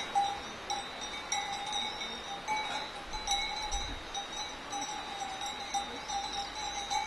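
Bells on grazing cows ringing unevenly as the cows move, the same ringing note struck again a few times a second. Small bird chirps come in during the second half.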